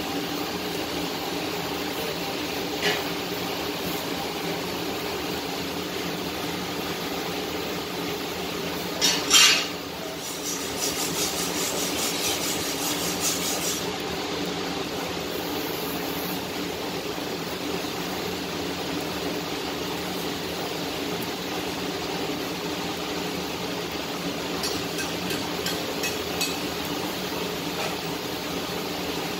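Metal clinking and knocking against metal, a loud cluster of knocks about nine seconds in followed by a few seconds of quick ticking, then light taps near the end, over a steady hum.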